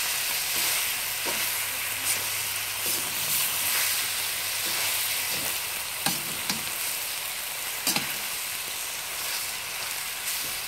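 Lamb and vegetables sizzling in a very hot wok while a metal spatula stirs them. The spatula scrapes the pan and knocks sharply against it a few times, most clearly about six and eight seconds in.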